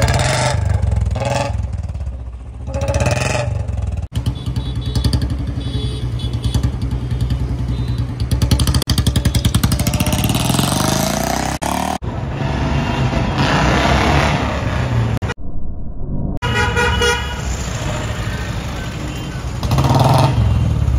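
Royal Enfield Bullet 350's single-cylinder engine running through an aftermarket C-bend exhaust pipe, a steady loud thump that rises in pitch as the bike is revved and ridden off. Vehicle horns sound briefly over it.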